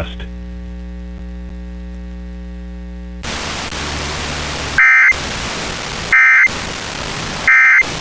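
Emergency Alert System end-of-message tones over an FM broadcast: three short bursts of warbling SAME data, about a second apart, marking the close of the required monthly test. Before them a steady hum runs for about three seconds, and a static hiss comes up just before the bursts.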